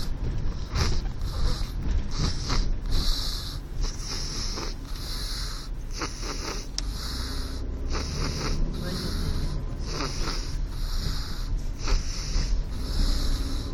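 A baby snoring: short raspy breaths repeating about once a second, over a steady low rumble.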